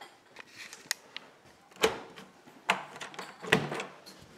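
Footsteps on a hard hallway floor: four evenly paced steps a little under a second apart, the last three loud and sharp.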